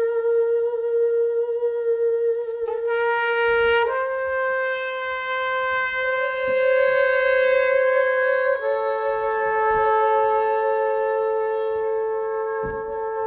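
Free-improvised music: a trumpet holding long, sustained notes with a second held tone sounding alongside it. The notes step to new pitches a few times.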